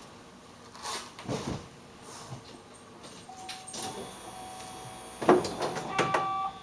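Footsteps and handling knocks of someone at a car, with a sharp knock about five seconds in and a few clicks after it. A thin steady high tone begins about halfway through.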